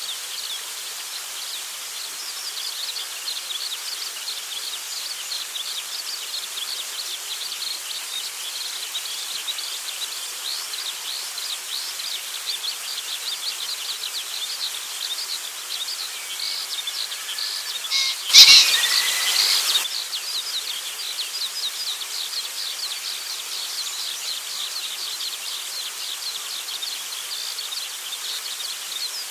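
Male green pheasant's horo-uchi courtship display about 18 seconds in: a short crow followed by a rapid whirring drum of its wings lasting about a second and a half, the display a cock uses to call hens. Under it a steady high chirring of insects runs throughout.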